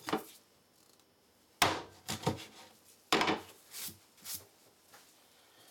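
Meat cleaver chopping through a rabbit's front legs onto a plastic cutting board: a run of sharp chops and knocks, the two heaviest about a second and a half in and about three seconds in.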